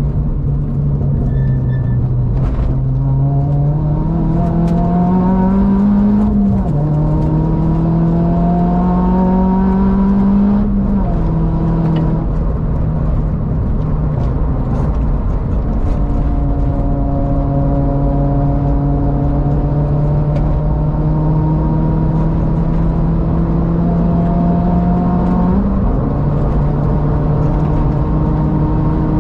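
Mitsubishi Colt Ralliart's turbocharged 1.5-litre four-cylinder engine heard from inside the cabin, pulling hard under full acceleration over steady road and tyre noise. Its pitch climbs and drops with upshifts about six and a half seconds in and about eleven seconds in, then rises slowly through a long pull in a higher gear before another upshift near the end.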